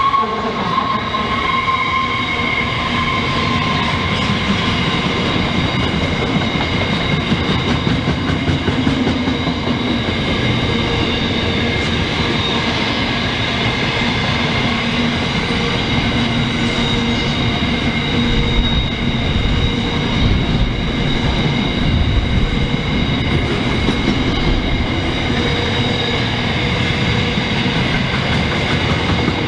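Container freight wagons of a long goods train rolling past: a steady, loud rumble of wheels on the rails. Steady high-pitched tones from the wheels run over it, and a ringing tone fades away in the first couple of seconds.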